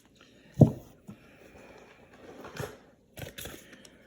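Handling noises: a dull thump about half a second in, then faint rustling and a few light clicks.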